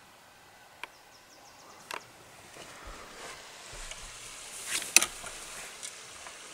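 Faint outdoor background with a few sharp clicks and crackles, the loudest about five seconds in.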